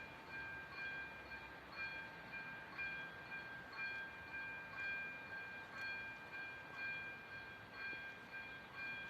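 Railway level crossing warning bell ringing steadily, about one stroke a second, over a steady background rumble.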